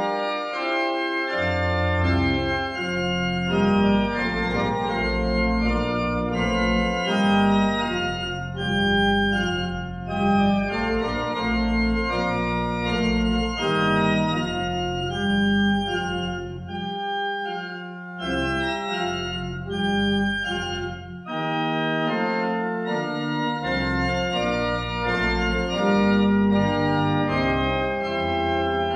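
Church organ playing a closing voluntary: slow, sustained chords over a deep pedal bass that drops out briefly twice in the second half.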